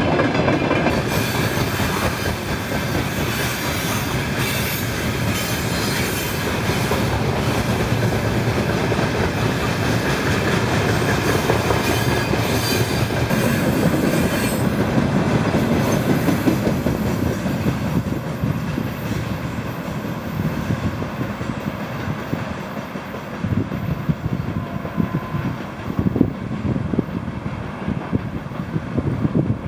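Freight train of railway tank cars rolling past. The sharper, higher part of the noise drops away about halfway through, and the rumble eases a little toward the end as the train moves off.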